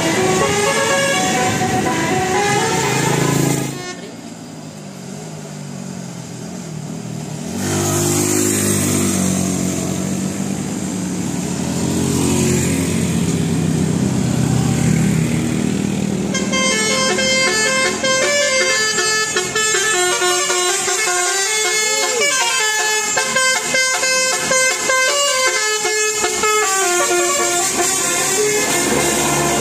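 Bus telolet horn, a set of musical air horns, playing tunes of quick stepped notes, with a quieter spell about four seconds in and a long run of rapidly changing notes in the second half.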